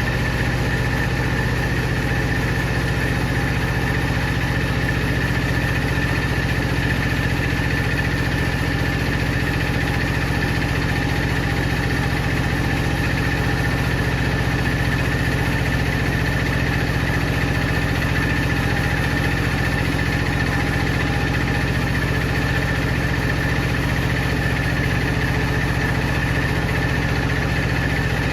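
Sawing machinery running steadily, an unchanging engine-like drone with a constant high whine over it and no change in load.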